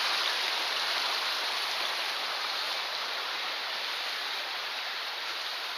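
Small mountain stream rushing over rocks: a steady, even rush of water.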